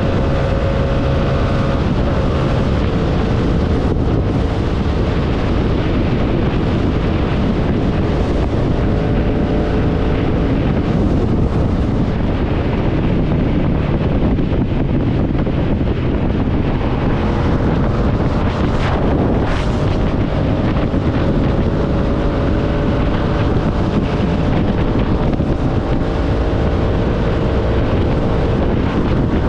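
Motorcycle engine running steadily at riding speed, its note drifting slowly up and down under heavy wind rush on the microphone. The track comes from a video its uploader labels AI-generated, so the engine sound may be synthetic rather than a recorded Yamaha MT-07.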